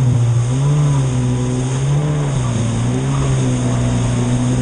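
Racing jet ski engine at speed, heard from on board: its note drops and climbs again a few times, then holds steady for the last second or so, over the rushing of spray.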